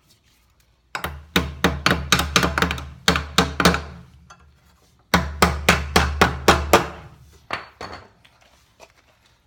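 Hammer pounding the nail tabs of a metal electrical box into a wooden 2x4 stud. It strikes in two quick runs, about a dozen blows, a pause, then about eight more, followed by a few lighter taps.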